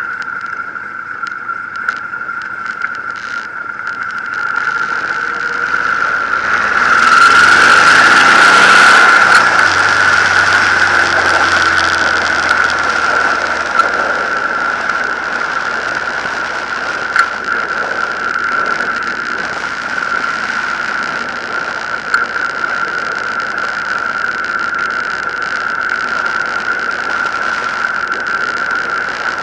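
Honda VTX 1800 V-twin motorcycle riding, heard from an onboard camera with heavy wind noise; about six seconds in the engine accelerates, rising in pitch and peaking in loudness around nine seconds, then settles to a steady cruise. A steady high-pitched whine runs under it throughout.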